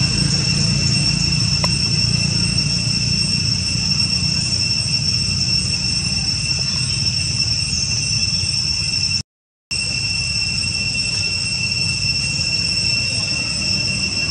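A steady, high-pitched drone from a chorus of insects, with a low rumble underneath. It cuts out for about half a second about nine seconds in.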